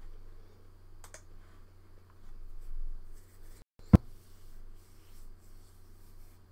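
Quiet room tone with a steady low hum and a few faint small noises. About four seconds in the sound drops out for an instant, then there is a single sharp pop.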